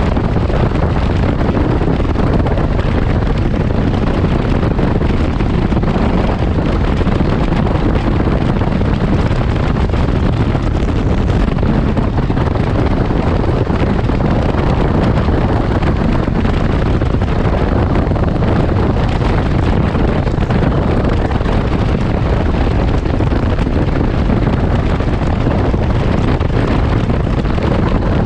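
Steady wind noise on the microphone mixed with the drone of a 2019 Can-Am Ryker Rally three-wheeler cruising at highway speed, about 75 mph.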